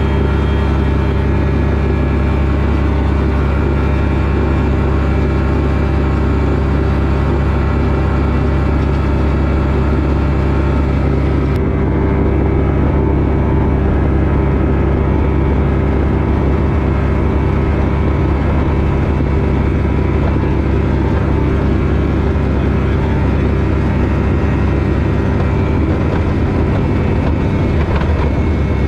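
Steady drone of a propeller aircraft engine heard inside a glider's closed cockpit, with low rumble as the aircraft rolls along a dirt strip.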